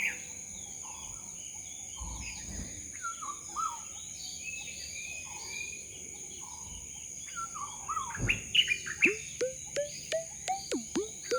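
Birds chirping and calling over a steady high-pitched insect-like drone. From about nine seconds in comes a quick regular run of short falling chirps, about two a second.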